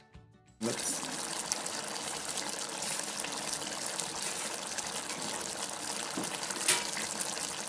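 Mutton in masala cooking in the pot, a steady hissing sizzle with scattered crackles, starting abruptly about half a second in.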